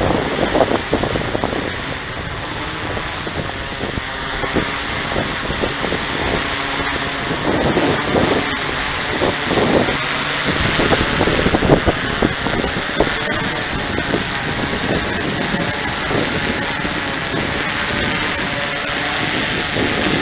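Cuta-Copter fishing drone's propellers buzzing as it descends and lands. The motor pitch wavers and shifts as the drone holds steady against gusty wind.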